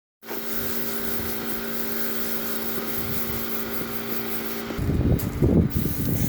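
A steady mechanical hum holding one pitch. From about five seconds in, loud irregular buffeting from wind on the microphone comes in over it.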